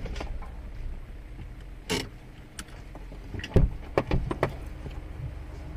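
Car engine idling with a low, steady hum, heard from inside the stopped car, with a handful of irregular small clicks and knocks from the cabin.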